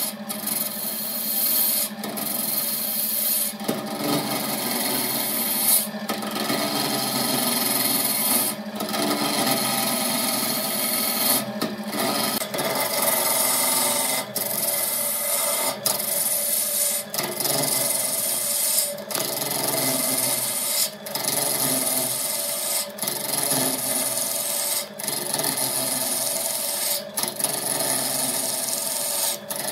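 A wood lathe spinning a large wooden blank while a hand-held turning tool cuts into it: a continuous scraping, shaving noise over the lathe's steady hum, broken by brief gaps about every two seconds.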